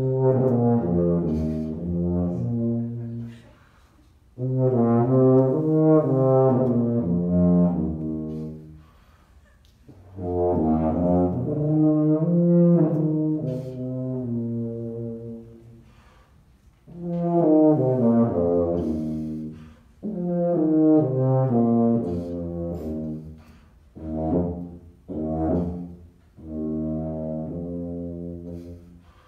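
Miraphone tuba played solo, improvising in phrases of several notes each, a few seconds long with short pauses between them; the last few phrases are shorter.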